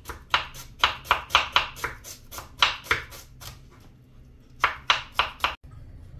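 Kitchen knife slicing red onion on a wooden cutting board: quick, even knife strikes about four a second, a short pause a little past halfway, then a few more strokes before they stop.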